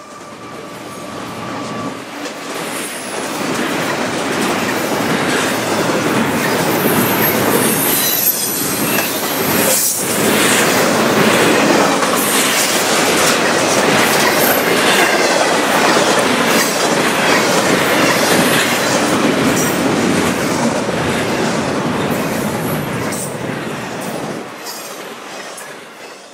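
A double-stack container freight train passing close by, its wheels rumbling and clacking over the rails with thin, high wheel squeals now and then. The sound swells up over the first few seconds and fades away near the end.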